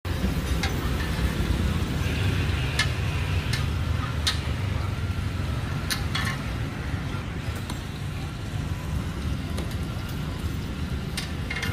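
Street-food cooking sounds: scattered sharp clinks of metal cooking utensils, with frying, over a steady low rumble.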